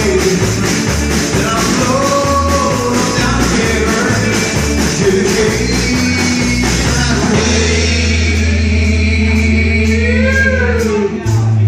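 Rock song playing: a singer over guitar, bass and drums, with a long held bass note in the second half.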